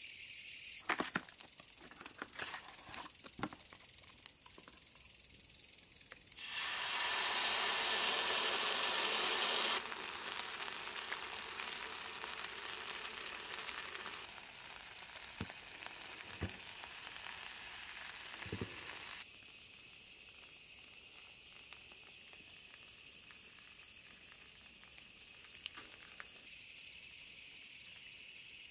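Food sizzling in a hot cast iron skillet over a charcoal shichirin grill: loud for about three seconds, then softer for nearly ten more, with a few sharp clicks of chopsticks against the pan. Crickets chirp steadily with a high, even trill throughout.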